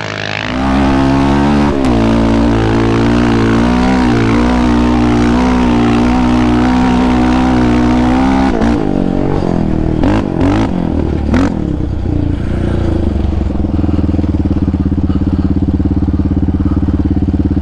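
Yamaha Raptor 700R ATV's single-cylinder engine, fitted with an aftermarket exhaust, running under throttle with small wavers in revs. Around ten to eleven seconds in there are a few sharp knocks and quick rev changes. From about twelve seconds it settles into a steady, lower-revving run with a fast, even pulse.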